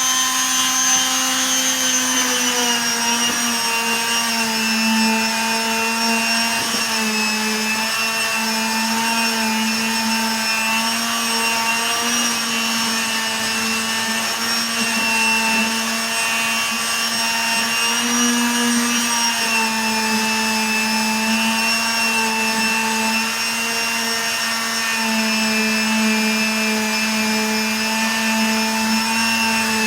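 Electric power tool motor running steadily, its hum dropping slightly in pitch about two seconds in and wavering a little as the load changes.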